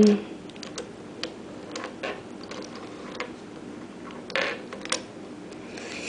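Plastic pieces of a 4x4 Rubik's Cube clicking and tapping as they are fitted by hand onto the cube's core: a dozen or so irregular small clicks, with a short scrape about four and a half seconds in.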